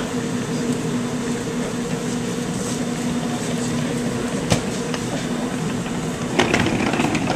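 Steady machine hum with a low tone running under it. There is a single knock about four and a half seconds in, and a short burst of clattering near the end as black plastic equipment bins on a wheeled trunk are handled.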